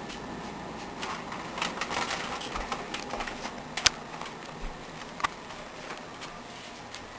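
Scattered light clicks and knocks of handling and moving about, over a faint steady room hiss; the sharpest click comes a little under four seconds in.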